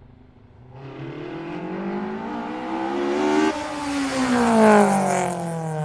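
A vehicle engine revving as it comes closer and passes, its pitch climbing, then dropping suddenly about halfway through and sliding down as it draws away.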